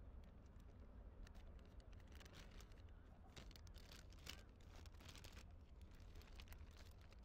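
Near silence: a faint low rumble with scattered faint ticks and rustles.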